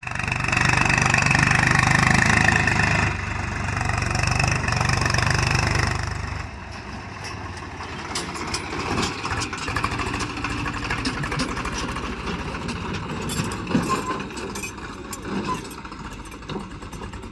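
A vehicle engine running steadily, loud for about the first six seconds, then dropping to a quieter, evenly pulsing run.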